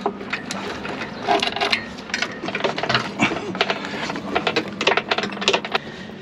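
Irregular sharp clicks and clinks of metal rigging hardware, shackles and stay fittings, being handled on a small sailing dinghy, with knocks of gear against the boat.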